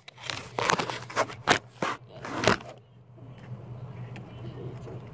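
Handling noise from a phone held against a laptop: a run of scrapes and knocks over the first three seconds, then a faint steady low hum.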